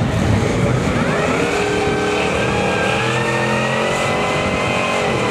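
Hillman's engine revved hard for a burnout, spinning its tyres on the start line: the pitch climbs over the first couple of seconds, then holds steady at high revs.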